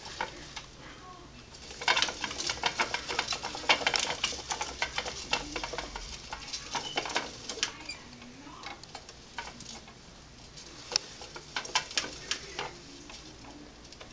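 Green plastic exercise wheel in a pet rodent's cage clicking and rattling in rapid spells as the animal runs in it. There are three busy spells: the longest starts about two seconds in, a shorter one comes near the middle, and another follows a few seconds later, with quieter stretches between.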